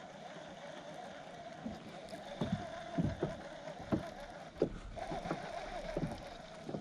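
Small waves lapping and slapping against the hull of a small fishing boat in a string of irregular low knocks, over a steady faint hum.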